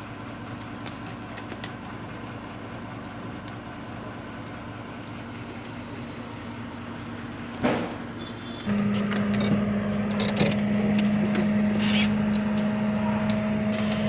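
Steady mechanical hum in the bus cab, with a knock just past the middle; about a second later a louder, steady single-pitched hum comes on suddenly and holds, with a few light clicks of handling over it.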